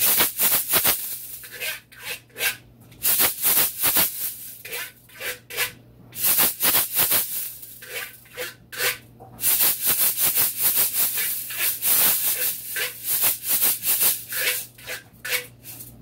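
A heavy ridged shaker-scraper with two metal end caps and a handle, played in runs of quick rattling, scraping strokes with short gaps between them.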